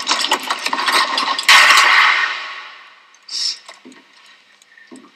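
Busy scuffling and rustling, then one sudden loud bang about a second and a half in that rings out and dies away over a second or so. A few soft, widely spaced knocks follow.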